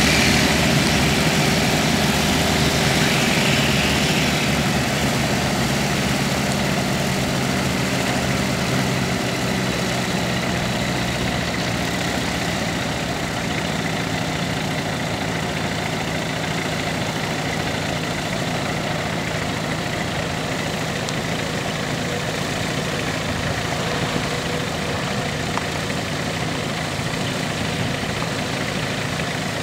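A Tecnam Bravo light sport plane's engine at takeoff power, loudest in the first few seconds and slowly fading as the plane climbs away. Under it a steady, even-pitched idling engine hum goes on close by.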